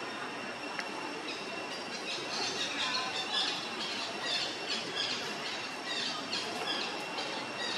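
Rapid high-pitched squeaky animal calls, several a second, starting about two seconds in, over a steady high whine.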